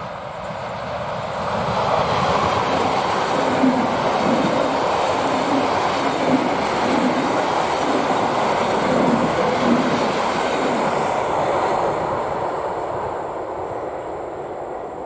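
Three coupled EN57 electric multiple units passing at speed: a loud rush of wheel and running noise with rhythmic clacking of wheels over rail joints. It swells over the first couple of seconds and fades away in the last few seconds as the train recedes.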